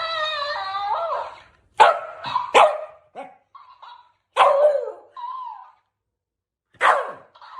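A dog gives a long wavering whine, then barks in short sharp bursts, a few times with gaps between.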